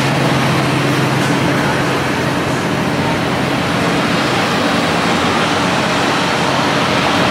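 Loud, steady city street traffic noise, with a constant low engine hum under the rush of passing vehicles.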